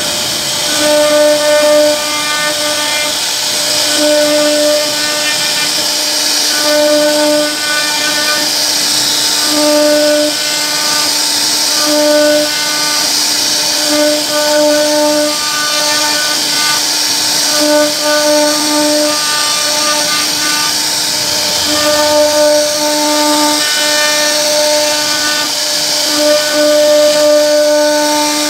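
CNC router spindle carving grooves into a wooden board: a steady high cutting hiss with a fixed-pitch whine that drops in and out every second or so as the bit works along the pattern.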